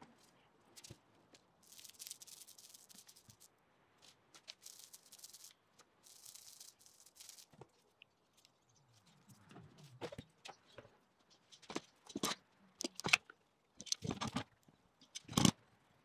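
Thin plywood sheets rubbing and sliding over one another as they are laid and lined up on glued layers, in short scraping bursts. From about ten seconds in come a series of sharp knocks and clacks as steel bar clamps are set on the stack and tightened.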